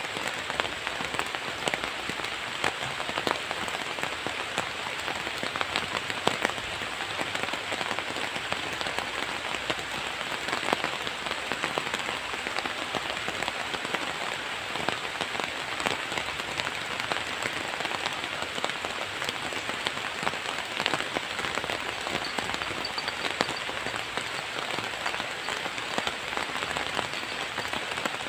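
Steady rain falling, with many individual drops ticking sharply close to the microphone.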